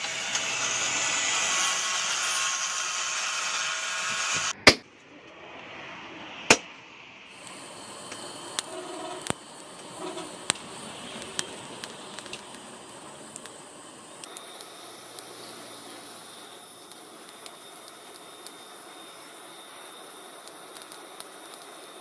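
An angle grinder with a sanding disc runs against a steel cleaver blade for about the first four and a half seconds. After two sharp clicks, a forge fire burns with a steady rush of air and scattered crackles and pops, a little brighter about halfway through.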